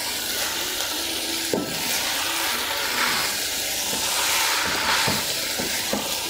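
Chicken and vegetable stir-fry sizzling steadily in a non-stick pan over a low gas flame while a spatula tosses spaghetti through it, with a few knocks of the spatula against the pan.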